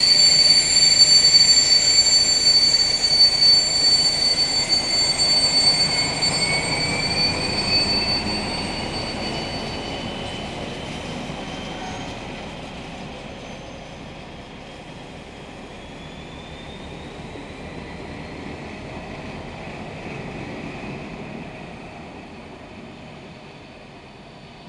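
Diesel locomotive 730 618 hauling a train of flat wagons, rolling past and pulling away, with high-pitched wheel squeal and a whine that slowly rises in pitch. It is loudest at first and fades steadily as the train recedes.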